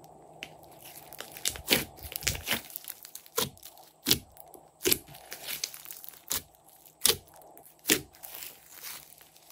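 Glossy slime being stretched, folded and pressed by hand, giving sharp pops and crackles at irregular intervals, with about eight louder pops.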